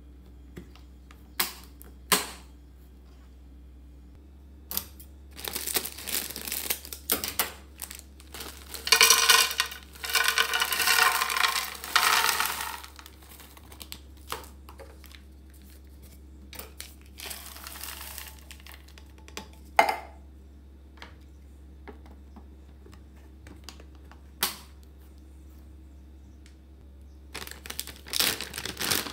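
A few sharp plastic clicks from a storage container's lid, then dry pet food, herb mix with pellets, poured from a cardboard box into a clear plastic container for about four seconds, the loudest sound here. Near the end, a foil pet-food bag crinkles as it is opened.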